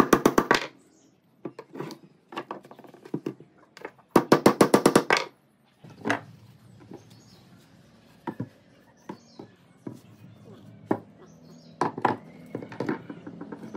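A hammer tapping wooden dowels into holes in tree branches, in two quick runs of rapid strikes: one at the start and one about four seconds in. After that come scattered single knocks as branches are handled and set down on a wooden workbench.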